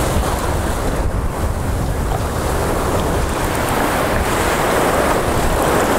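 Ocean surf washing and breaking in the shallows, with wind buffeting the microphone as a low rumble underneath; a steady, fairly loud rushing noise throughout.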